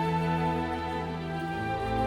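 Soft, slow background music with sustained chords and held string-like tones, and a lower bass note coming in near the end.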